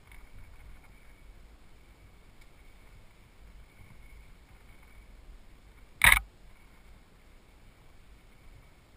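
Mountain bike rolling along a wooden boardwalk trail, a low steady rumble of tyres and riding noise, with one loud sharp knock from the bike about six seconds in.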